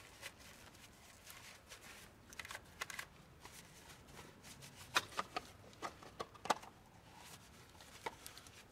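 Faint rustling of a paper shop towel and gloved hands wiping spilled engine oil off the tractor's frame, with a few light sharp clicks scattered through it.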